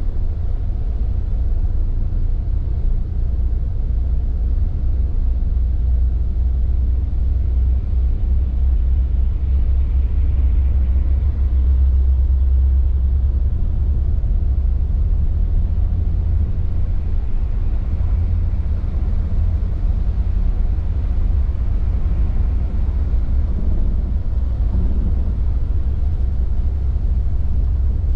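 Steady low rumble of an intercity coach driving on a wet highway, heard inside the cab: engine and road noise. It swells slightly in the middle as the coach passes a truck.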